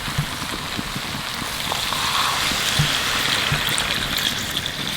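Spiced chicken pieces sizzling and crackling in a hot pan at the end of dry-frying (kasha), with a steady hiss.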